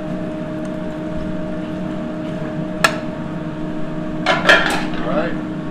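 A metal serving utensil clinks on a plate during plating: one sharp clink about three seconds in, then a brief clatter near the end. A steady hum of kitchen equipment runs underneath.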